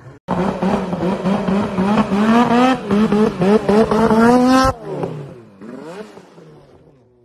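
Snowmobile engine revving hard in repeated surges, its pitch climbing with each burst of throttle, then cutting off abruptly. After that a quieter engine tone falls in pitch and fades away.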